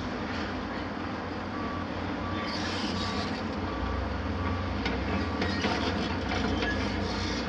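Heavy diesel demolition machinery running together, including a Hitachi 870 LCR excavator and a tracked mobile crusher: a steady low rumble with rubble clattering, a little louder in the second half. A reversing alarm beeps about seven times, roughly one and a half beeps a second, from about a second and a half in.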